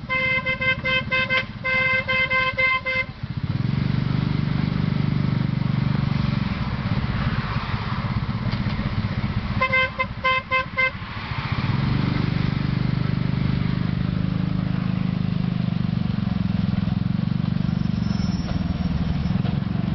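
Motor tricycle's engine running steadily under a ride through traffic. A high-pitched horn gives quick runs of short toots, about ten in the first three seconds and about five more roughly ten seconds in.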